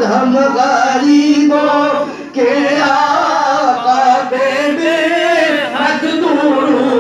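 A man singing a devotional salaam into a handheld microphone, holding long notes with wavering, ornamented pitch. There is a short breath break about two seconds in.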